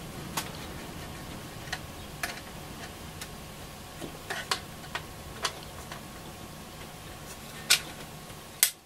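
Irregular small clicks and taps of hand tools and small metal parts on a transistor radio's chassis as its retaining bracket is worked loose, the two loudest clicks near the end. A faint steady low hum runs underneath.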